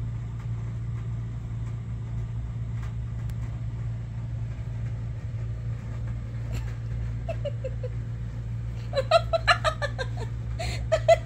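A steady low electrical hum, with a quick run of short, high-pitched vocal sounds near the end.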